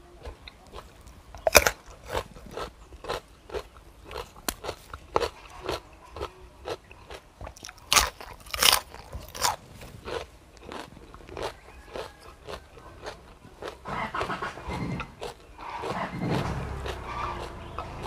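Close-up chewing of raw seafood and fresh vegetables: a string of short, crisp, wet crunching bites, a few a second, with several louder crunches. Near the end comes a denser clatter as a spoon is worked through the food in the tray.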